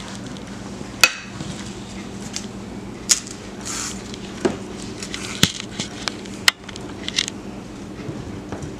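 A metal spoon clinking and scraping against a dish while pudding is spooned out: about six sharp knocks spread over several seconds, with a short scrape near the middle, over a steady low hum.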